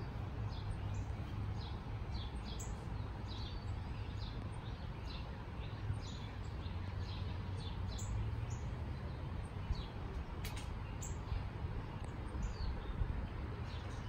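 Birds chirping and calling: many short chirps scattered throughout, over a steady low rumble.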